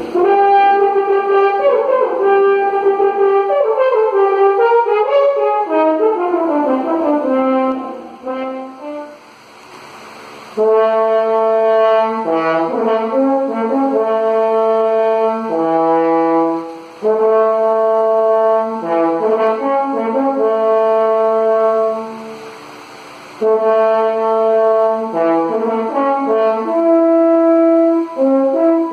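French horn played solo: a quick run of notes falling in pitch over the first several seconds, then, after a short pause, phrases of long held notes with brief breaks for breath between them.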